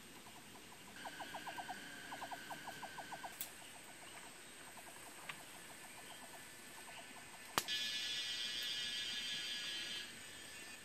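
Forest wildlife calls: two quick trains of short, evenly repeated pitched pulses, a few sharp knocks, then a steady high buzz lasting about two and a half seconds that stops suddenly.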